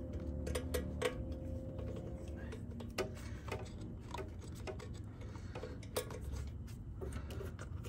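Light, scattered metallic clicks and ticks as small bolts are handled and started by hand into the mounts under a motorcycle seat, over a low steady hum.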